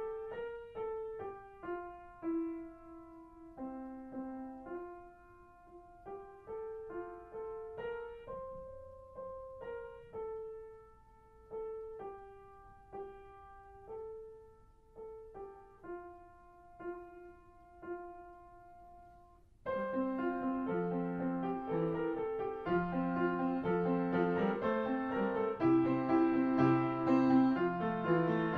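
Background piano music: a slow single-note melody, then about twenty seconds in a louder, fuller passage with chords and bass notes.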